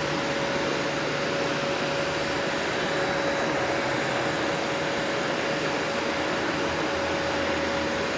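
Sebo Felix upright vacuum cleaner running at its high speed setting while vacuuming a sandy rug: a steady rushing with a constant whine.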